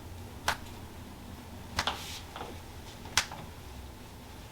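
Three sharp wooden taps, evenly spaced about a second and a half apart: a toksen mallet striking its wooden wedge against the patient's arm.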